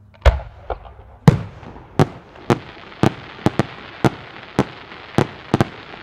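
Aerial firework shells going off: a run of about a dozen sharp bangs, roughly two a second, the loudest about a second in, over a steady hiss.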